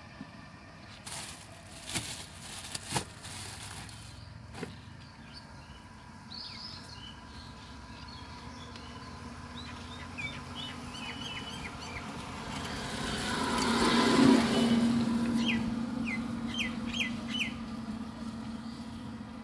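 A motorised three-wheeler passes along the road: its noise swells to a peak about two-thirds of the way through, with a steady hum, then fades. Short, repeated bird calls come before and after it. A few sharp clicks and knocks sound in the first few seconds.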